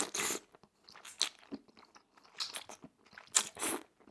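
Mouth noises of eating thick udon noodles: a few short slurps, at the start, about two and a half seconds in and near the end, with wet chewing and small mouth clicks between them.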